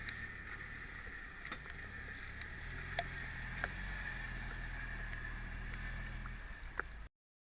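Jeep YJ engine running slowly with a steady low rumble, with a few sharp knocks and clicks spread through it. The sound cuts off suddenly near the end.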